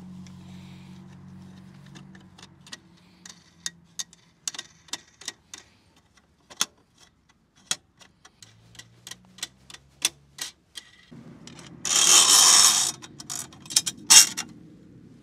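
A run of irregular sharp clicks and clinks, about two dozen over several seconds, then a loud burst of noise lasting nearly a second and a shorter one soon after.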